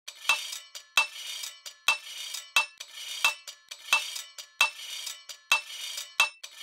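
Rhythmic metallic clinking percussion, about one sharp strike every two-thirds of a second with lighter clicks between, a looping intro beat on a title card.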